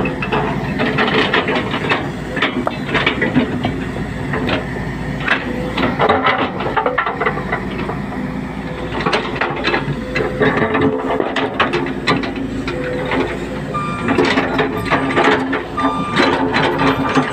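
Tracked hydraulic excavator running and working at close range: a steady engine hum under repeated clanks and knocks, with short squeals near the end.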